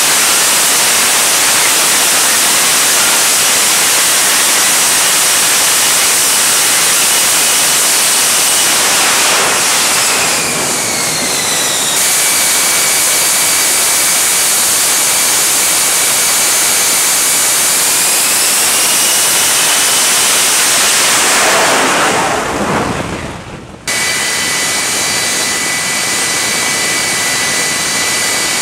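F-35B Lightning II's F135 jet engine running loudly: a dense jet noise with steady high whining tones, some of them gliding down in pitch. The sound shifts abruptly several times. About three-quarters through, it sweeps downward and fades, then cuts back to a steady loud run.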